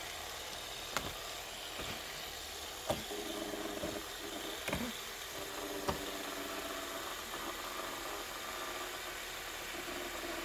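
Fidget spinners set spinning one after another: a few sharp clicks as they are flicked, then a faint steady whir of their bearings that holds on.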